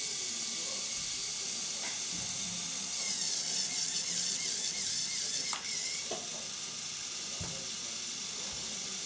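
Small Lego Technic electric motor whirring through its gears as the truck's tipping bed is raised and lowered, with a few light plastic clicks.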